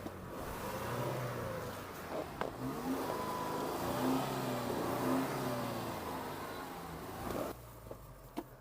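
2009 Changfeng Leopard SUV's 2.4-litre engine revving up and down under load in four-wheel drive, the revs rising and falling repeatedly before dropping away near the end.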